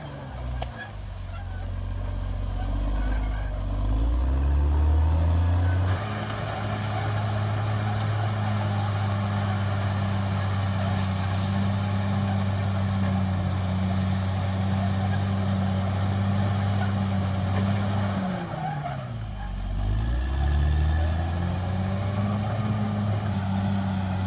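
Caterpillar D6R XL bulldozer's diesel engine running, its pitch shifting up and down in the first few seconds and then holding steady. Its note dips sharply about 18 seconds in and climbs back within a couple of seconds, with a rattling noise over the engine throughout.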